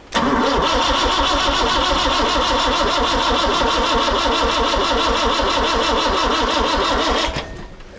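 Starter motor cranking an old Citroën's petrol engine, its carburettor just primed with fuel from a temporary tank. It cranks for about seven seconds with a steady whine and rapid even pulses, then stops suddenly without the engine catching.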